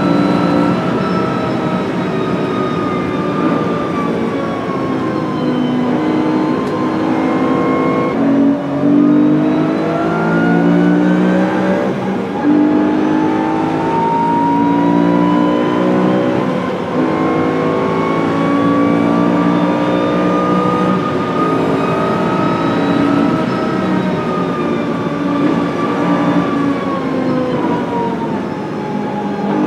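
BMW M3 V8 engine heard from inside the race-caged cabin while lapping at speed. Its note climbs and falls with throttle and gear changes, dipping sharply about eight seconds in, over steady road and wind noise.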